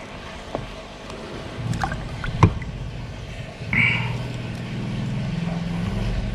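Small scissors snipping the membrane of an arowana's gill: a few sharp clicks in the first half, the loudest about two and a half seconds in. About halfway through a low steady hum sets in and runs on, with a brief higher hiss as it starts.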